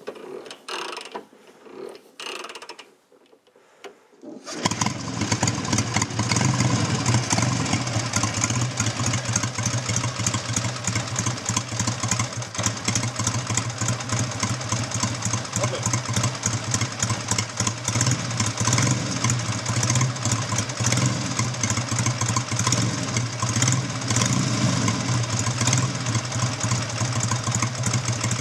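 BSA Golden Flash's 646cc parallel-twin engine firing up about four and a half seconds in, then running at a steady idle.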